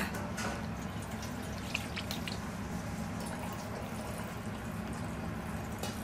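Water poured from a steel tumbler onto a steel plate, a brief splash at the start followed by a few scattered drips.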